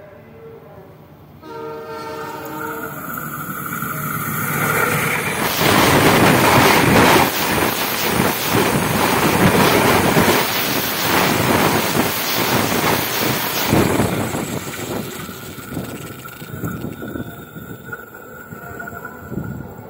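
Train approaching with its horn sounding, then passing directly over a camera set between the rails: a loud rush of wheel and rail noise with rapid clattering from about five seconds in. It dies away after about fourteen seconds, leaving a steady high tone.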